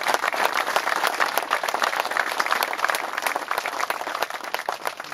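Audience applauding, many people clapping at once, easing off near the end.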